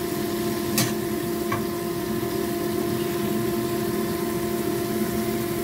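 Kitchen range hood extractor fan running with a steady hum, called noisy. A single sharp knock comes about a second in.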